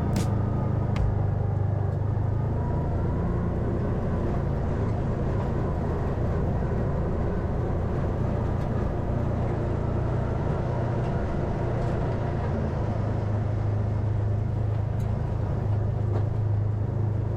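Side-by-side UTV's engine running steadily as it drives along the trail, a constant low drone.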